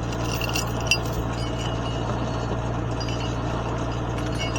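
Tractor engine idling steadily, with a few metallic clinks of a logging chain being handled in the first second.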